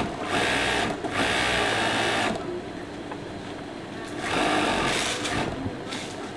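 Industrial sewing machine stitching polo-shirt fabric, running in three short starts and stops, the longest about a second, with a longer pause in the middle.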